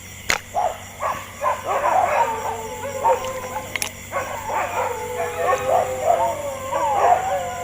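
Several dogs howling together in a chorus of overlapping, long, wavering cries mixed with yelps, swelling about a second and a half in.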